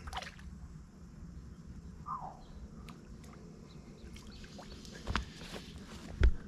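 A few sharp pops at the water's surface on a calm mangrove channel, the loudest near the end, with a short chirp about two seconds in.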